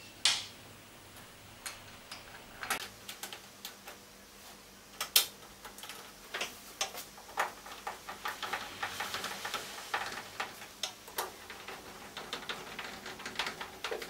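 Scattered clicks and light knocks of a tumble dryer door being fitted onto its hinge and fastened by hand, with a quicker run of small ticks about eight to ten seconds in.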